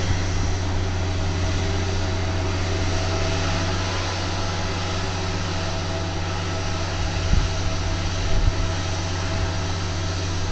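Engine of a Union MCR600 rotary snow-removal motor car running steadily with its rotary snow blower turning, a low drone with a steady hiss above it. Two low thumps come late on.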